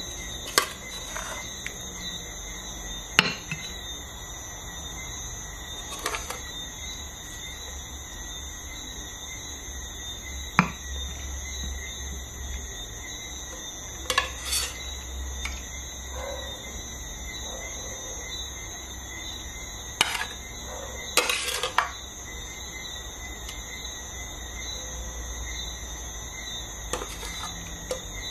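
Metal serving utensils clinking against a cooking pot and a ceramic bowl as curry chicken is dished up: about eight sharp separate clinks spread out, over a faint steady high-pitched hum.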